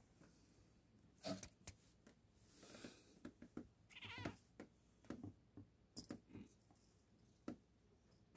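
Orange-and-white domestic cat giving a short, wavering meow about four seconds in. Faint scattered clicks and rustles come before and after it.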